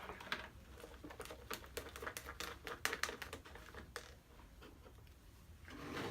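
Fast, irregular run of light clicks and taps from handling slime-making things on a table (bowl, utensil, bottles), lasting a few seconds and thinning out after about four seconds.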